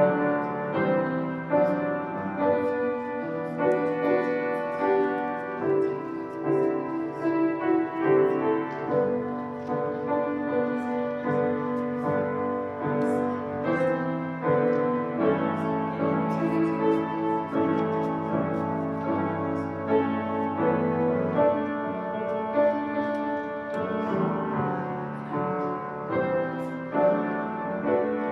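Piano playing slow, sustained chords.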